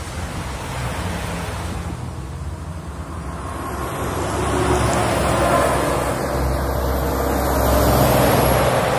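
Road traffic: a car driving off, then vehicles including trucks passing on a main road. It swells louder about halfway through and again near the end.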